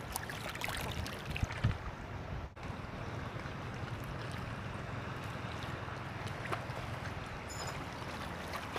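Steady wind on the microphone over water lapping, with a few sharp knocks in the first two seconds.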